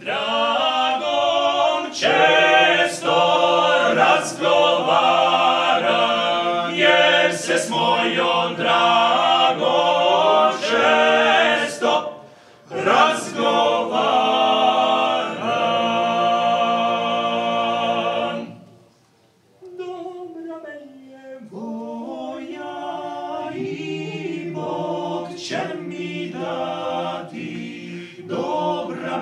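Unaccompanied choir singing. The singing breaks off for about a second roughly two-thirds of the way through, then resumes more softly.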